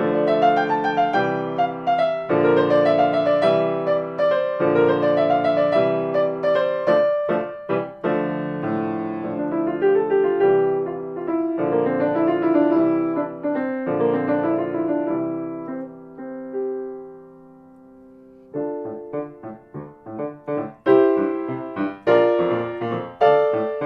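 Solo piano playing a samba-style piece, with a steady run of chords and melody notes. About sixteen seconds in, the playing dies away to a held, fading chord, then picks up again with short, detached chords.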